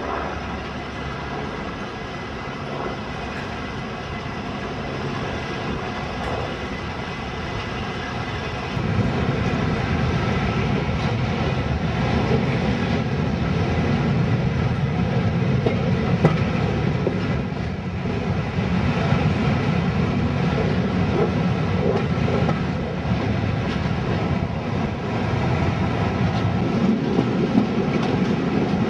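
Passenger train running along the line, its wheel and rail noise heard through an open carriage window. It gets louder about nine seconds in and stays steady after that.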